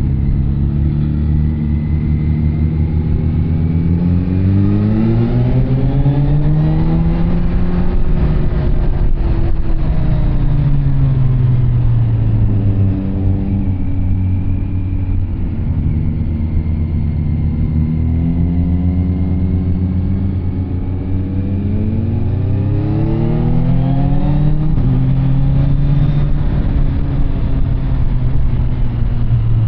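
Kawasaki Z900 SE's inline-four engine through an SC-Project CR-T carbon exhaust, its note climbing and dropping back in pitch several times as it is revved up and eased off.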